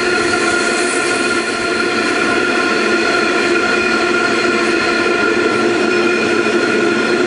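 Iron ore train's steel ore wagons rolling past: a steady, loud rumble of wheels on the rails with a few held whining tones over it.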